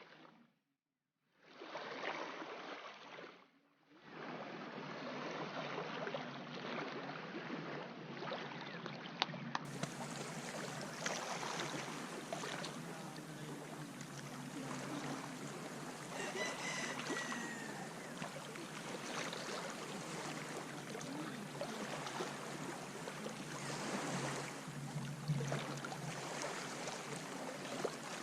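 Sea waves washing in, a steady rushing water noise, broken by two short dropouts in the first few seconds.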